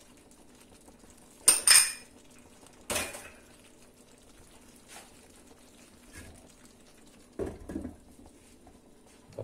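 Clinks and knocks of kitchenware at a clay tagine, the loudest a sharp clink with a brief ring about a second and a half in. About seven seconds in comes a duller clunk as the earthenware tagine lid is set down onto its base to cover the dish.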